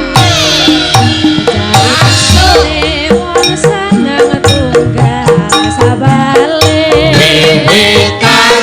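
Javanese gamelan ensemble playing, with frequent kendang drum strokes over ringing metallophone and gong notes; a singer's wavering voice comes in near the end.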